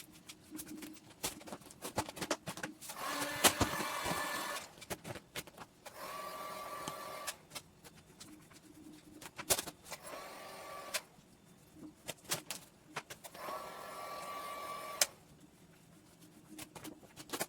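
Adhesive vinyl film being worked by hand: four scraping, rustling strokes of about a second each, some with a faint squeak, with clicks and taps between them.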